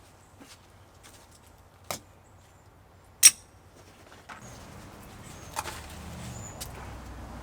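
A few sharp single clicks and knocks, the loudest about three seconds in, with a low steady hum setting in about halfway.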